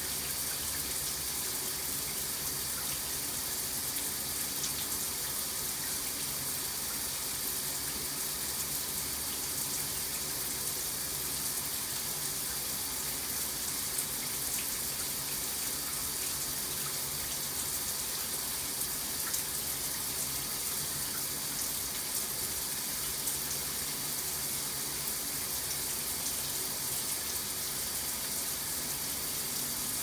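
Shower head spraying water in a tiled shower: a steady, even hiss, strongest in the high range, with no change throughout.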